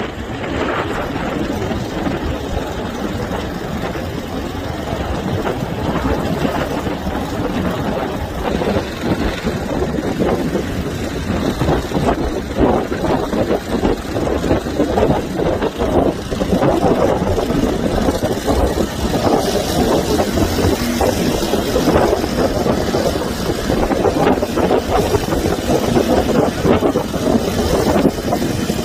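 Boat engine running under way, growing a little louder in the second half.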